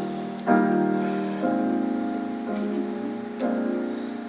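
Piano playing a slow run of sustained chords, a new chord struck about once a second, as accompaniment between sung lines of a jazz improvisation.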